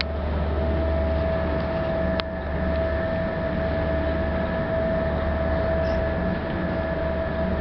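Car ferry's engines running steadily, a deep low drone with a steady mid-pitched whine above it. A single sharp click about two seconds in.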